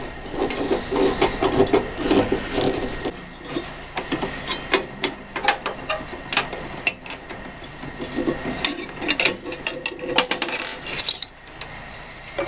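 Hands working inside an opened microwave oven, moving wiring and metal and plastic parts: irregular clicks, taps and rubbing, busiest in the first few seconds and again about two-thirds of the way through.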